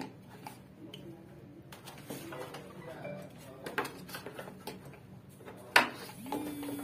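Hands handling plastic parts under a split AC indoor unit: scattered light clicks and knocks, with one sharp click about six seconds in. A brief steady hum starts near the end.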